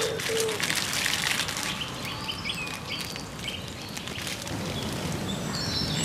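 Birds calling outdoors: a couple of low hooting notes in the first half-second, then short high chirps from small birds. A crackling patter fills the first second and a half, and a low rushing noise builds over the last second and a half.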